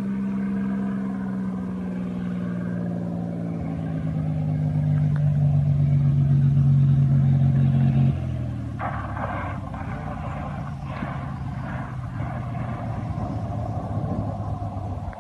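Cessna 206's six-cylinder piston engine droning on final approach, growing louder as the plane nears, then dropping sharply about eight seconds in as power comes off at touchdown. A lower, rougher engine and rolling noise follows as it taxies along the dirt strip.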